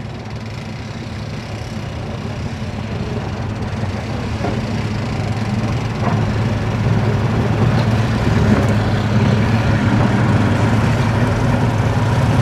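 Engine idling with a steady low hum that grows gradually louder.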